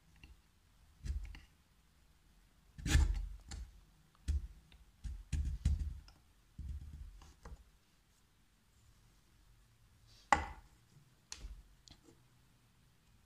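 Handling clicks and knocks as carbon rods are pushed and worked into holes in the bottom of a thin clear plastic cup: irregular taps and rattles in small clusters, with the sharpest clicks about three seconds in and again near ten seconds.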